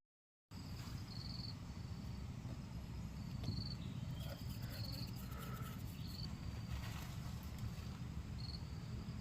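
Insects chirping: a short high chirp repeated about once a second over a steady low rumble. The sound drops out completely for half a second at the very start.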